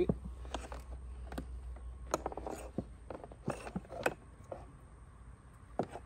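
Small plastic wiring connectors and loose wire being handled: scattered light clicks and brief rustles, with a low steady hum underneath.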